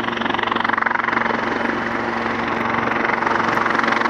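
British Army AW159 Wildcat helicopter approaching to land, its rotor beating rapidly over a steady engine hum, growing gradually louder as it closes in.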